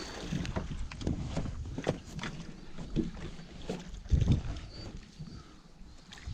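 Water splashing and irregular knocks and thumps against a small fishing boat, with one loud thump about four seconds in, as an alligator gar is brought in and landed.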